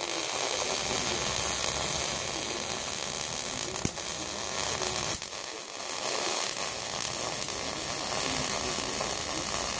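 Welding arc laying silicon bronze onto sheet metal: a steady hiss that starts with the arc and is briefly broken twice near the middle.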